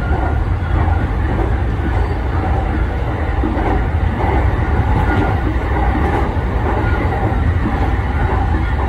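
JR East 209-500 series electric commuter train running along the line, heard from inside the driver's cab: a steady rumble of wheels on rail.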